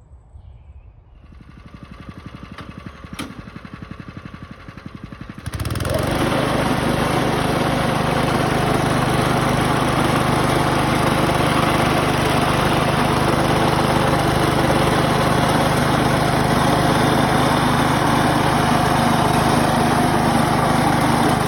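Small gas engine of a sod-cutting machine, running with a quick even pulsing, then about five seconds in jumping to a much louder, steady run.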